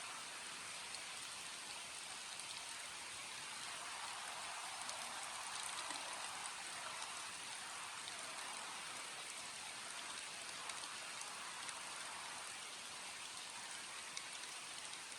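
Steady rain falling, with scattered drop ticks on a surface; it swells slightly a few seconds in, then eases back.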